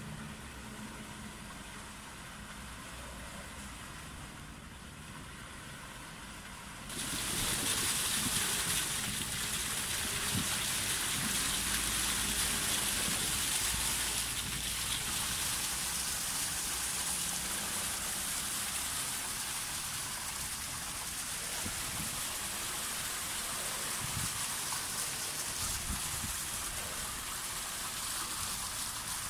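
Floor fountain's water jets, rising through steel grates set in cobbled paving, come on about seven seconds in with a sudden rush of spraying and splashing water that then runs steadily. Before that there is only a low steady hum.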